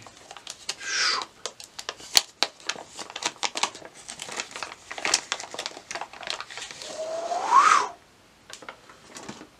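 Clear plastic bag crinkling and crackling as a cassette player is worked out of it by hand. Near the end comes a short rising squeak.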